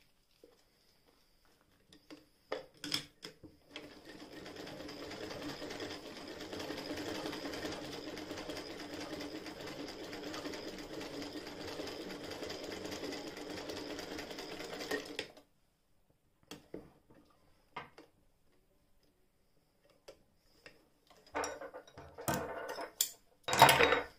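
Chapman Pearl De Luxe hand-crank sewing machine stitching a seam: a steady, rapid, even chatter of needle and feed for about eleven seconds, which stops suddenly. A few clicks come before it. Near the end there is louder rustling and knocking as the sewn fabric is handled and pulled out.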